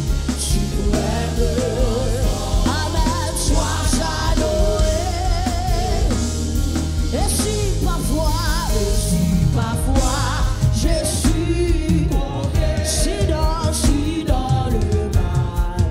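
Live gospel worship music: several singers in harmony, sung with vibrato, over a drum kit and keyboard.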